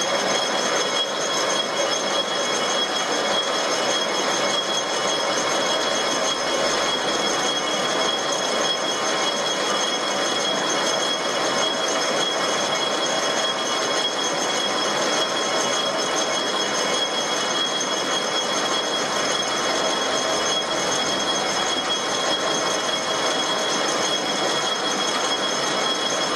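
Metal lathe running under power feed while a boring bar takes a light cut inside a workpiece's bore, opening the hole toward size: a steady machine hiss with a continuous high-pitched whine of several tones.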